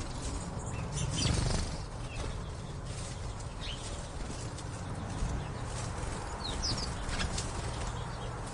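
A few short, high bird chirps over a steady low background rumble, with scattered clicks or taps throughout.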